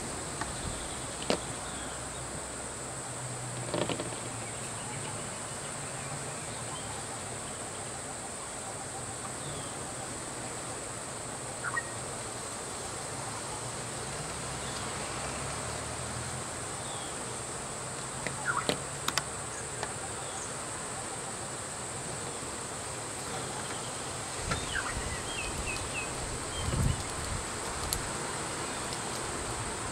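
Steady high-pitched insect drone from the roadside forest, with a few sharp clicks and knocks and short chirps scattered through it, over a low hum.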